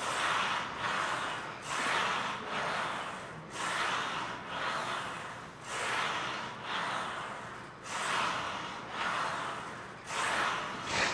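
A man breathing hard through mouth and nose under exertion during a set of overhead presses, quick hissing breaths in and out repeating about once a second.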